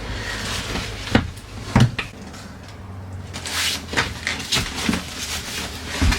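A series of irregular wooden-sounding knocks and clunks, about seven in all and unevenly spaced, with rustling in between.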